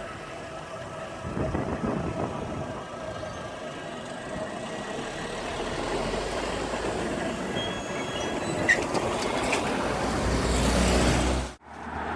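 Class 802 bi-mode train, running on its diesel engines, approaching and passing over the level crossing. Its rumble grows steadily louder and is cut off abruptly near the end.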